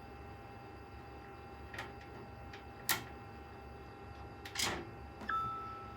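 A few clicks and knocks from handling PC case parts and screws, the sharpest about three seconds in, then a brief scrape and a short ringing tone near the end.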